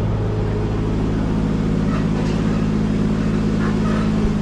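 A machine or engine running steadily, a low, even drone that does not change.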